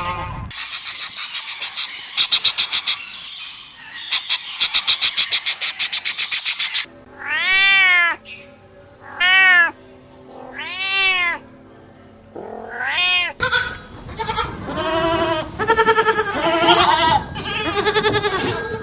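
Domestic cat meowing: three long meows, each rising and falling in pitch, then a quicker run of shorter, overlapping meows. Before the meows come about six seconds of rapid, high-pitched pulsed trilling.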